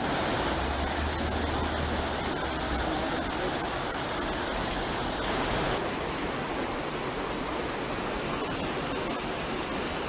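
River rapids rushing in a steady noise of white water. A low rumble runs under it for the first few seconds, and the sound turns a little duller about six seconds in.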